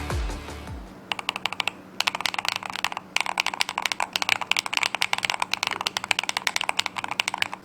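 Fast typing on an MCHOSE Ace75 Hall-effect keyboard: a dense run of keystroke clicks with two brief pauses.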